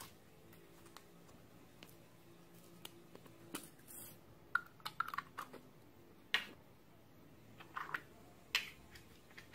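Scattered sharp clicks and taps from small plastic cups and containers being handled over a glass bowl of slime, some in quick little clusters, with a brief high rustle about four seconds in as sequin glitter is poured from a plastic cup.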